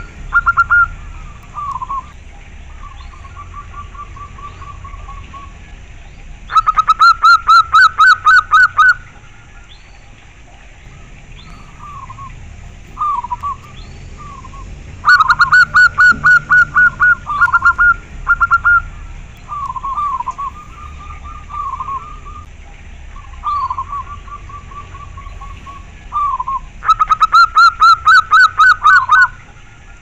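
Zebra dove (perkutut) singing: three loud bursts of rapid, stuttering coos, each lasting two to three seconds and coming roughly ten seconds apart, with softer single coos in between.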